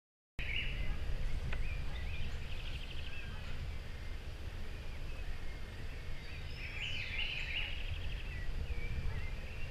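Birds chirping, with two quick trills of rapidly repeated notes, one a couple of seconds in and another near the end, over a steady low rumble.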